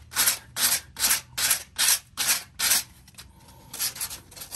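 A sanding disc held in the hand and rubbed back and forth over a stained concrete fountain: a run of rasping scrapes, about two strokes a second. About three seconds in the strokes stop for about a second, then resume, faster, near the end.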